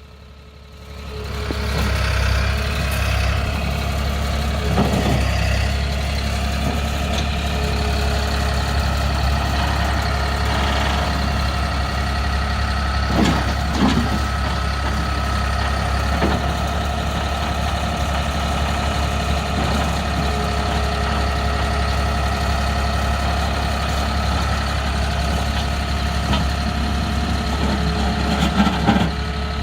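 New Holland LS180 skid steer loader's diesel engine running steadily at idle, coming up to speed about a second in, with a few brief clunks partway through and near the end.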